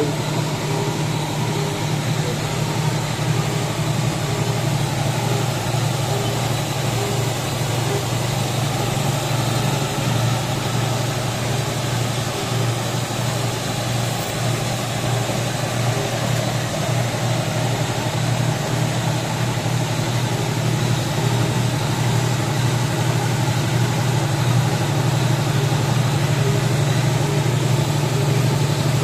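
Roll-to-roll paper lamination and slitting machine running, a steady low mechanical hum from its drive and rollers.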